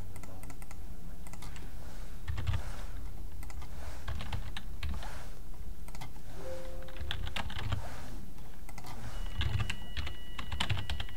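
Typing on a computer keyboard: short runs of keystrokes with pauses between them, a run about every two seconds.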